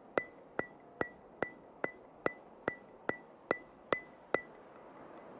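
A run of sharp, evenly spaced ticks, about two and a half a second, each with a brief bright ring, like a ticking sound effect. They stop about four and a half seconds in.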